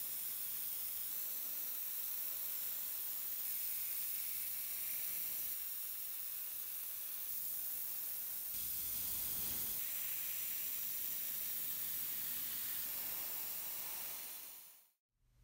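Airbrush spraying paint onto small model-train parts: a steady high hiss of air that shifts slightly in strength and stops abruptly near the end.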